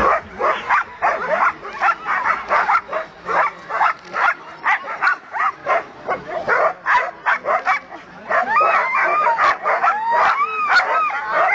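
A team of harnessed sled dogs barking and yelping in rapid overlapping bursts, several a second. From about eight seconds in, high whining yelps that rise and fall join the barking.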